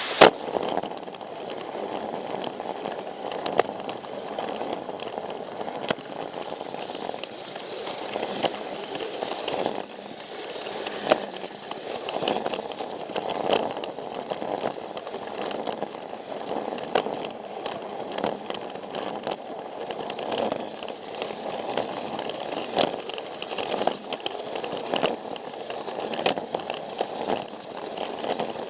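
Plarail battery-powered toy train running on plastic track: a steady rattling whir from its small motor and gears, with irregular clicks as the wheels cross the track joints.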